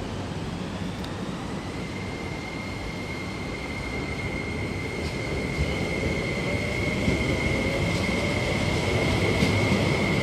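MTR East Rail Line SP1900 electric train running: a steady electric whine glides up in pitch over the first two seconds and then holds, over a rumble that grows louder as a lower tone rises from about halfway, as the train picks up speed.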